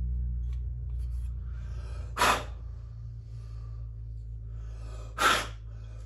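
Two short, sharp bursts of hiss, about two and five seconds in, with a third starting right at the end, over a steady low hum.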